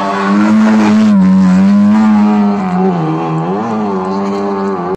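Rally car engine running at high revs, loudest in the first half, its pitch wavering up and down as the throttle is worked; the sound cuts off suddenly at the end.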